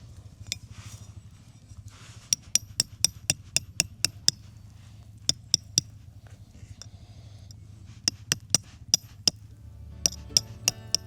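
Hammer blows on a metal tent stake, sharp ringing strikes in quick runs of several at a time, over a steady low hum. Guitar music comes in near the end.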